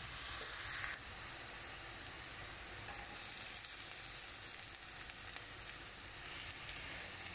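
Diced onion frying in ghee in a frying pan, sizzling steadily; the hiss drops a little about a second in.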